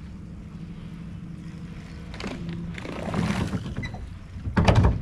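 Electric trolling motor humming steadily on a small aluminum boat, stopping a bit over two seconds in. A couple of knocks follow, the loudest a sharp clunk near the end.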